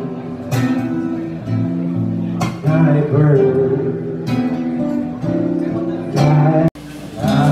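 Acoustic guitar music with strummed chords and a strong attack every couple of seconds; it cuts off abruptly near the end and something quieter follows.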